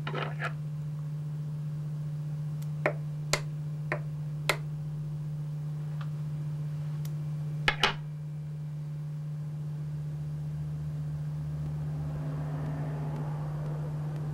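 A steady low hum, with a handful of light, sharp clicks about three to eight seconds in.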